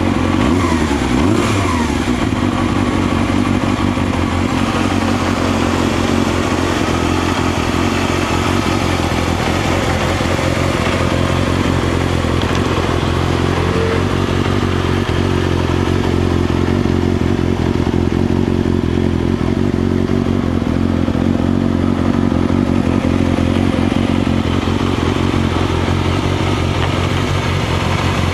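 Yamaha XJR400R's air-cooled inline-four engine idling steadily through a WR'S aftermarket silencer. The note rises and falls briefly once, about a second in.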